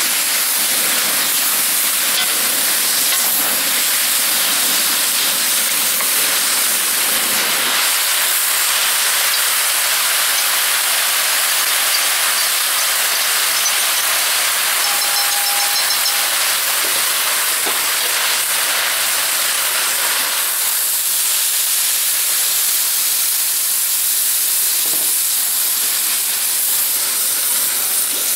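Beef, onion, bell pepper and snow peas sizzling steadily in a hot wok as they are stir-fried.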